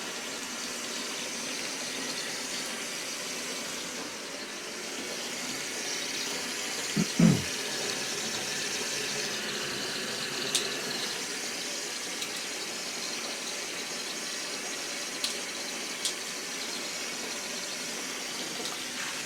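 Water running steadily from a faucet into a laundry utility tub as it fills, with a few faint clicks.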